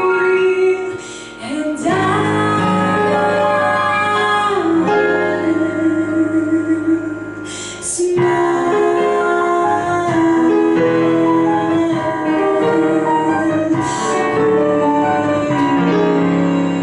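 A woman sings a jazz ballad into a handheld microphone, with long held notes and slides between them, over a digital piano accompaniment.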